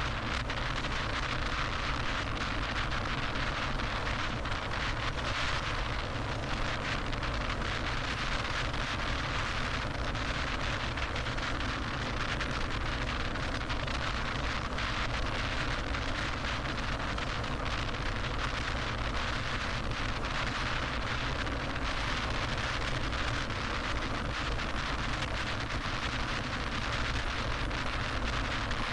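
Steady road noise of a car driving at freeway speed: tyre and wind rush, even and unchanging throughout.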